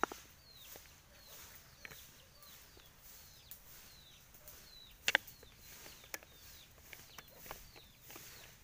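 A bird chirping over and over, short high notes that drop in pitch, about two a second. Sharp clicks and knocks break in now and then, the loudest about five seconds in.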